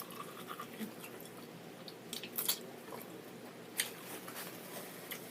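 Quiet chewing and biting of corn on the cob, with a few sharp crunchy clicks about two seconds and again about four seconds in.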